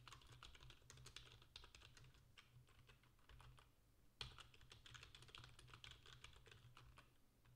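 Faint, rapid typing on a computer keyboard, a quick run of key clicks. It pauses briefly a little past halfway and resumes with one sharper key strike, over a low steady hum.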